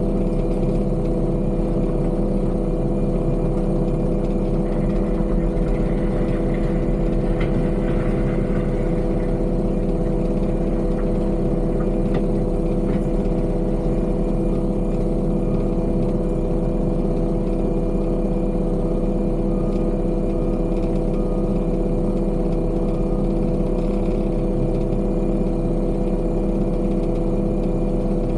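Heavy construction machine's engine running steadily at a constant speed. A faint series of short beeps comes in about twenty seconds in.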